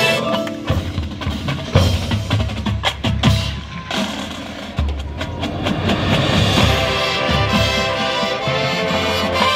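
High school marching band in a field show: a sustained brass chord breaks off and the drums take over with a busy passage of sharp strikes and low drum hits, joined by front-ensemble percussion. Horn chords swell back in over the last few seconds.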